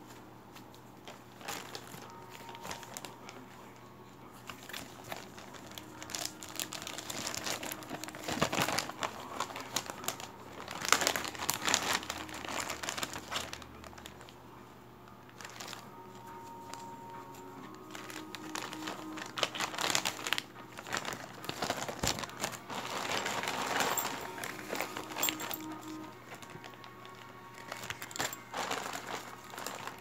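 Clear plastic zip-lock bags crinkling and rustling as they are handled, in irregular bursts, loudest a little before the middle.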